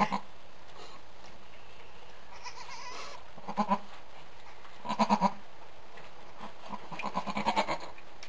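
Goats bleating beside newborn twin kids: short, low, stuttering bleats in three bouts, a couple of pulses a few seconds in, three more about a second and a half later, and a longer run near the end.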